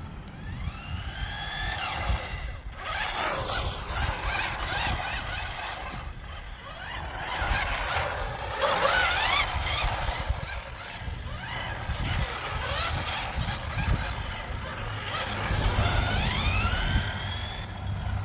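Brushed electric motor and gears of a 1/10-scale RC touring car whining, rising in pitch several times as it accelerates and falling as it slows, over a low rumble.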